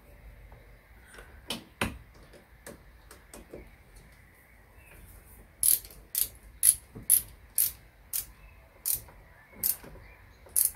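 Ratchet wrench clicking as the fork clamp bolts are snugged up by hand: a few scattered clicks, then from about halfway in a run of about ten sharp clicks, roughly two a second, slowing toward the end.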